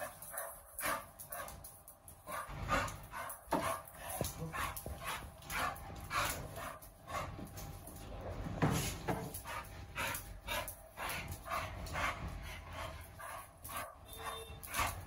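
American bully dog in an excited greeting, making short repeated vocal sounds about two a second, with whimpering among them.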